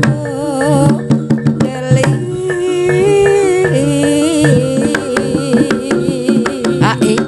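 Live Javanese jaranan gamelan music: kendang drums beat a quick pattern over held bronze kettle-gong tones, with a wavering melody line on top.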